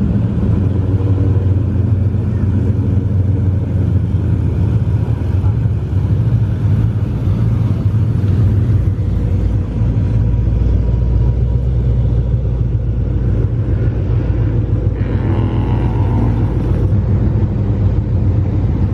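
Car engines and exhausts giving a low, steady rumble as muscle cars pull out of the lot, with a few brief voices about fifteen seconds in.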